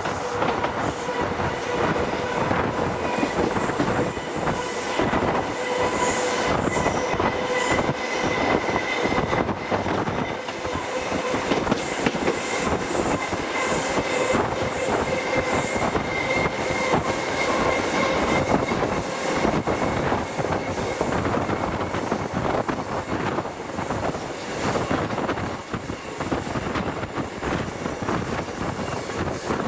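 Passenger train running along the track, heard at an open carriage window: a steady rush of wheel-on-rail noise with a faint whine held through it.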